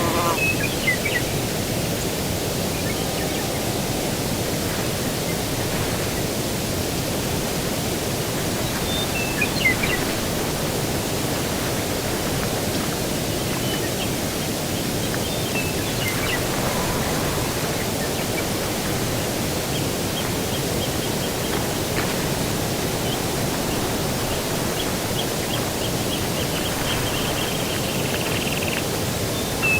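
Steady outdoor rushing noise of breeze, with a few short bird chirps scattered through and a rapid buzzy trill in the second half.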